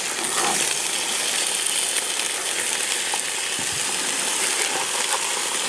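Floured beef strips sizzling steadily as they fry in a 14-inch cast iron Dutch oven, with a few light scrapes and clicks of a metal slotted spatula turning the meat.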